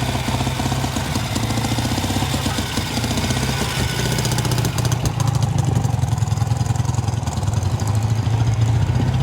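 Classic Norton motorcycle engine running with a fast, even firing beat, getting a little louder about halfway through.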